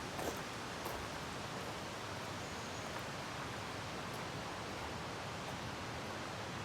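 Steady rushing of a mountain stream, with a couple of faint light clicks just after the start.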